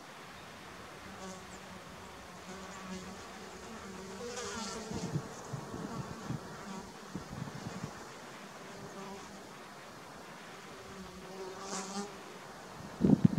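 A flying insect buzzing close by, its hum wavering and fading in and out. A few loud knocks near the end.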